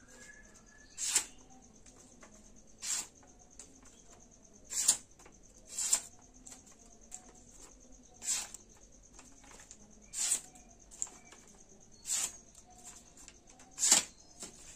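A freshly sharpened knife blade of bearing steel slicing through a sheet of paper held in the hand: eight short, crisp swishes roughly two seconds apart. Each is a sharpness test cut.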